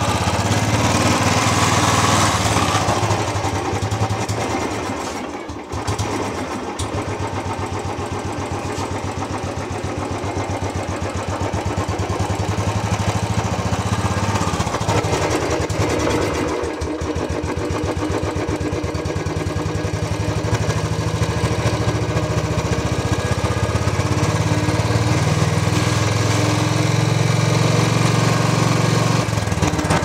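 Royal Enfield Bullet single-cylinder engine running, heard up close at its aftermarket 'Punjabi' silencer. It runs harder in the first few seconds, drops back briefly about five seconds in, then settles to a steady beat that picks up again and grows louder in the last several seconds.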